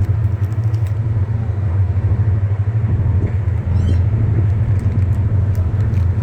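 Steady loud low rumble, with a few faint clicks over it.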